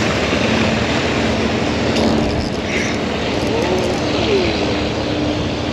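A steady motor hum over wind and surf noise.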